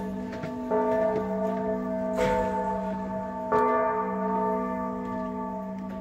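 Church bells ringing, a fresh stroke about every second and a half, each ringing on into the next over a steady deep hum, easing off near the end.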